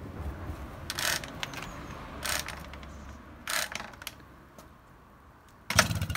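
Honda Express NC50 moped being pedalled over to crank its engine, which does not yet fire: the chain and pedal mechanism ratchet and clatter, with four sharp rattling bursts, the last and loudest near the end.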